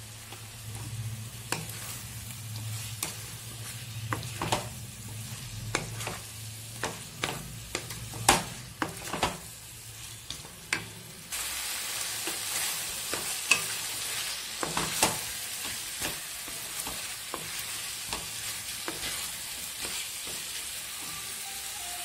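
Spice masala with cauliflower and potato sizzling in oil in a kadai while a wooden spatula stirs, knocking and scraping against the pan: the masala being fried down (koshano). The sizzle gets louder and brighter about eleven seconds in.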